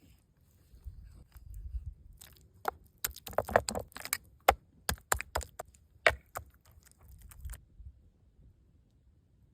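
A quick run of sharp clicks and knocks, about a dozen over some five seconds, after a low rumble at the start.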